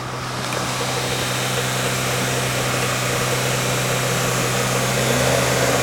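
An engine running steadily with a low, even hum, growing slowly louder; about five seconds in a second tone rises in pitch and a deeper hum joins.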